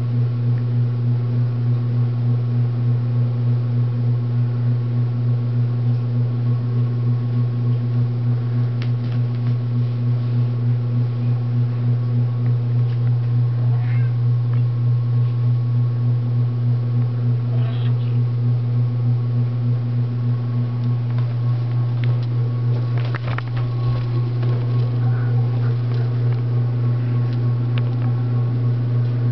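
A steady low hum, with a few faint clicks and short squeaks scattered through it.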